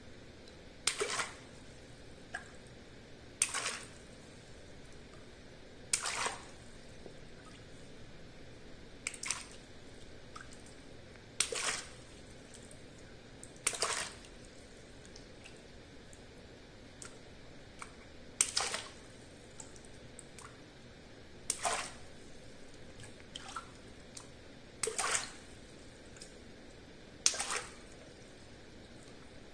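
Small latex water balloons pricked with a pin and bursting one at a time, each a sharp pop followed by a brief splash of water. About ten pops, every few seconds.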